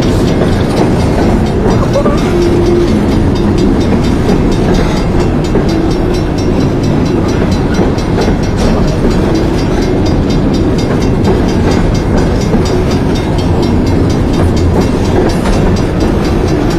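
Freight train of CSX coal hopper cars rolling past: a steady, loud rumble of steel wheels on rail with many small clicks and knocks throughout.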